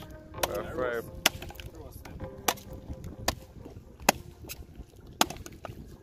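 Sharp chopping strikes, five of them spaced irregularly about a second apart.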